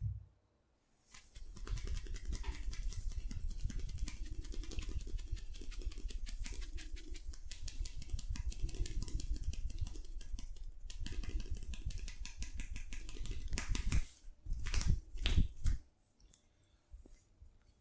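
Fast, continuous hand tapping of a barber's head massage, the palms or fingers patting rapidly on the head for about thirteen seconds. It ends in a few louder, separate slaps.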